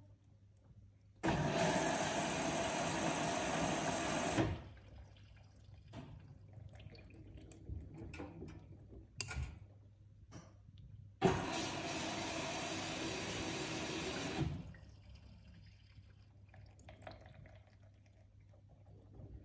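LG front-loading washing machine filling early in a cottons cycle: water rushes in through the inlet valve in two bursts of about three seconds each, starting and stopping abruptly. Between the bursts, quieter sloshing and light knocks come from the slowly tumbling drum.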